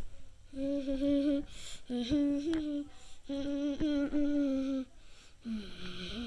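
A person humming: three held notes at nearly the same pitch, each about a second long, then a lower note that dips and comes back up near the end.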